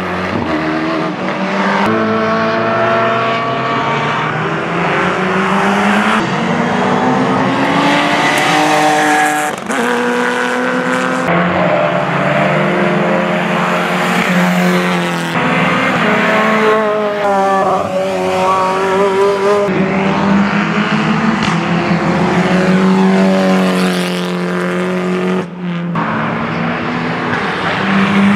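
Racing car engines at full race pace, rising and falling in pitch as they accelerate, shift gear and brake. The sound jumps abruptly to another car several times.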